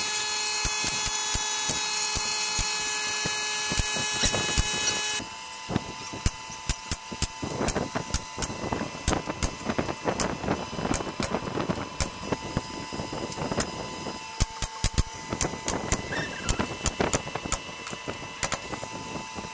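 Pneumatic nail gun shooting nails into a pine partition frame: many sharp cracks at uneven intervals. A loud steady hiss with a whine under it runs through the first five seconds and stops abruptly.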